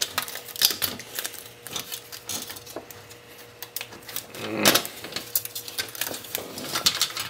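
Sheet-steel chassis and circuit boards of an old cable box being handled and turned over on a workbench: irregular clicks, taps and light metal clatter, loudest about four and a half seconds in.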